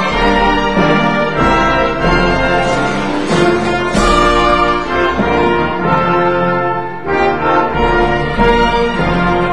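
Orchestral music led by brass, with sustained chords changing about every second.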